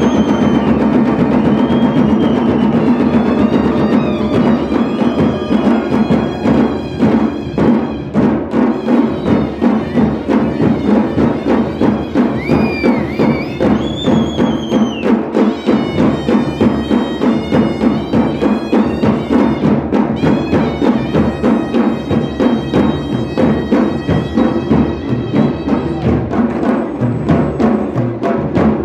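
Himachali bajantri folk ensemble playing: many large double-headed dhol drums beaten together in a steady, driving rhythm, with a wailing wind-instrument melody gliding over the top. The beat becomes sharper and more clearly pulsed about eight seconds in.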